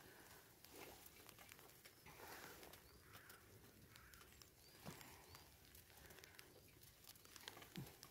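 Near silence: faint outdoor background with a few brief, high bird chirps and a couple of soft clicks.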